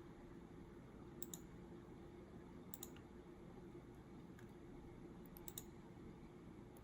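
Faint key clicks from a Cherry MX 2.0S Pro mechanical keyboard, a few presses mostly in quick pairs, about a second in, about three seconds in and again near five and a half seconds, over a faint steady hum.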